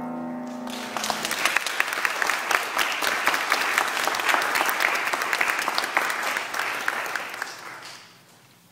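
A grand piano's final chord dies away, then an audience applauds for about seven seconds, fading out near the end.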